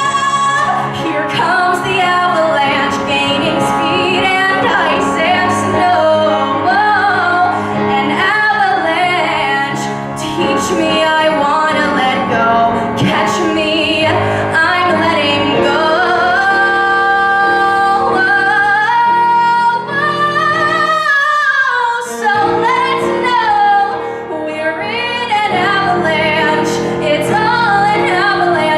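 A female voice singing a pop song with instrumental accompaniment, the melody sliding and bending through long held notes.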